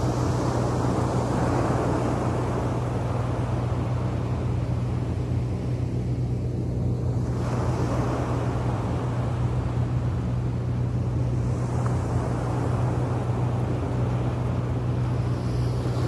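Small sea waves breaking and washing up a beach, the wash swelling and fading twice, over a constant low hum.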